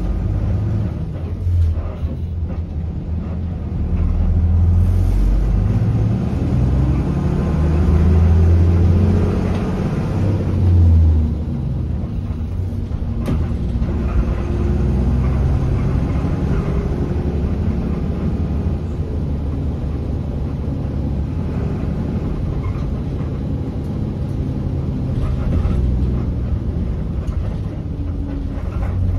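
Cabin sound of a 1990 Isuzu Journey P-LR312F bus under way: the diesel engine's low drone rises in pitch as it accelerates through the first ten seconds or so, then runs steadily, with the body jolting and rattling on its leaf-spring suspension.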